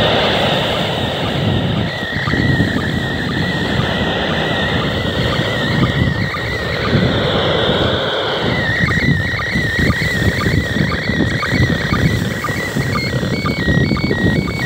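Slow-scan TV picture signal from the International Space Station coming from the speaker of an Ailunce handheld radio: a warbling tone near 2 kHz with short, evenly spaced dips, the line sync pulses of the image being decoded on a phone. It starts about two seconds in, drops out for a couple of seconds in the middle, and near the end steps back and forth between two pitches. Heavy wind noise on the microphone runs underneath.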